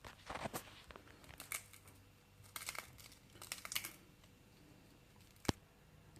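Crinkling and crunching in four bursts as dry food from a box is crushed into crumbs to stand in for breadcrumbs. A single sharp click comes about five and a half seconds in.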